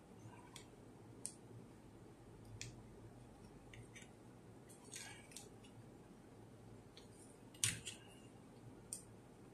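Faint, scattered plastic clicks and taps from the parts of a LINGDU D200 dashcam being handled during disassembly, its shell and inner circuit board turned and fitted together in the hands, with the sharpest click about three quarters of the way through.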